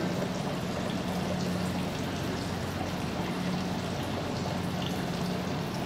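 Steady, even rushing hiss with a low hum underneath, unchanging throughout, with no distinct clicks or handling sounds.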